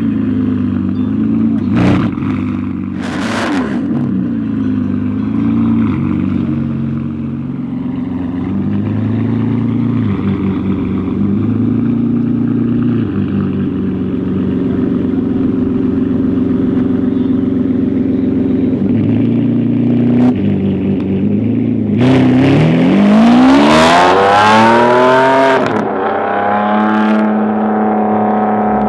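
Ferrari 599 GTB's V12 running through a full custom exhaust, idling with a steady rumble for a long stretch. About two-thirds of the way through it revs hard: the pitch climbs steeply, then falls back.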